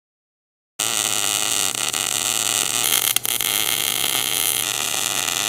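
Hand-held MIG (wire-feed) welding arc on a steel tube, a steady crackling hiss with a low hum, starting suddenly about a second in and breaking off briefly midway.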